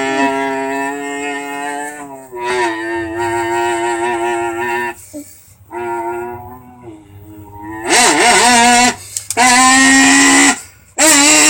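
A voice imitating a car engine: long held, buzzing engine-like tones in several stretches of a few seconds each, with short breaks between them and the pitch stepping down and wavering as if through the gears.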